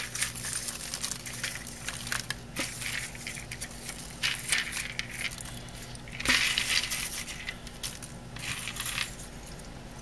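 Popped popcorn rustling and loose unpopped kernels clicking and rattling against a microwave bowl as the popcorn is scooped out by hand. The loudest rattle comes a little past the middle.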